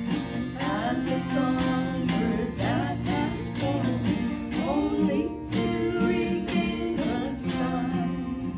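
Mountain dulcimer and acoustic guitar playing a folk song together: a plucked melody over steady held drone notes, with strummed chords.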